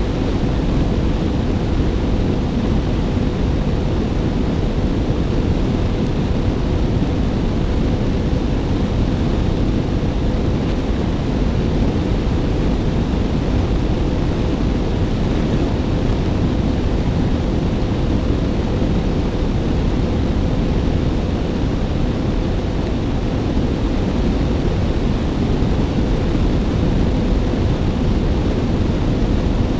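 Suzuki Bandit motorcycle at a steady cruise, heard as a loud, even rush of wind over the bike-mounted camera's microphone with the engine's steady note underneath.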